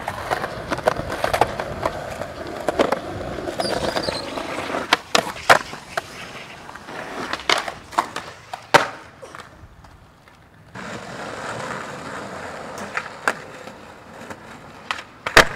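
Skateboard wheels rolling on concrete, broken by many sharp clacks of the board popping, landing and hitting concrete ledges.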